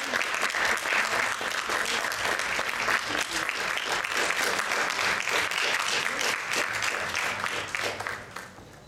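Audience applauding: a steady patter of many hands clapping that dies away near the end.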